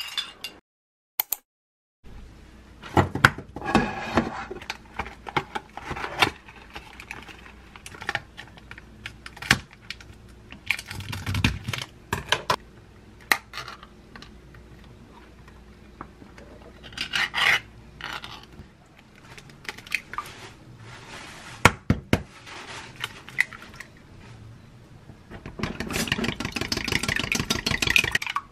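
Kitchen handling sounds: a spoon scraping a ceramic bowl, then clinks, scrapes and rubs of utensils and containers, including a pull-tab tuna can being opened. Near the end, chopsticks beat eggs rapidly in a glass mug, a fast run of ticking against the glass.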